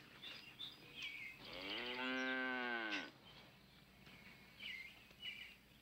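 A cow moos once: a single drawn-out call about a second and a half long that rises and then falls in pitch.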